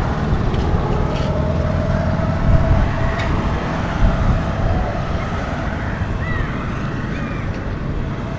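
Road traffic going by: a steady rumble of passing vehicles.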